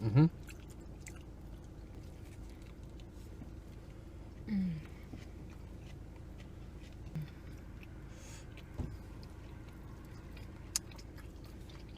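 Quiet chewing and small mouth sounds of someone eating, over a steady low background hum. A short falling 'mm' hum comes about four and a half seconds in, and a couple of sharp clicks come near the end.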